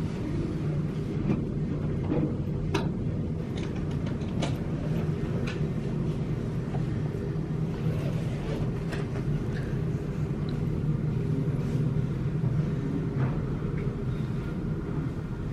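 Airbus A320 taxiing, its jet engines at idle making a steady low rumble heard through terminal glass, with a few faint clicks.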